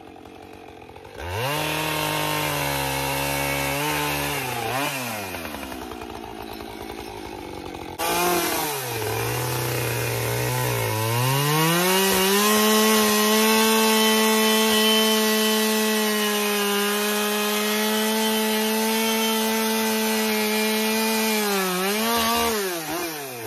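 Husqvarna two-stroke chainsaw carving into a log. It revs up and cuts briefly, then drops back to idle. It revs up again and holds a steady high speed in the wood for about ten seconds, then drops off right at the end.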